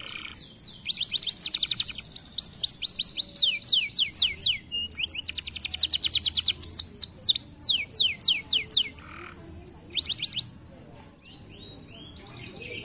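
Domestic canary singing: fast trills of quick, repeated down-slurred notes, several in a row, breaking off about nine seconds in, with one short trill after.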